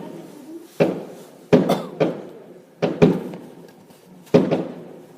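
Aerial fireworks bursting: about six sharp bangs at irregular intervals, each followed by a rumbling echo that dies away.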